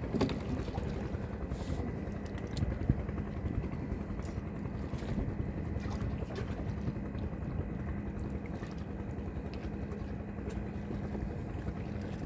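Fishing boat's engine running steadily with a low hum, a few faint clicks and one sharper knock about three seconds in.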